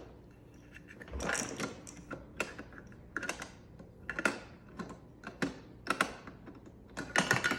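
Hard plastic toy pieces being handled: irregular clicks and knocks of blocks against the toy train, a few each second, with a quick cluster of clacks near the end.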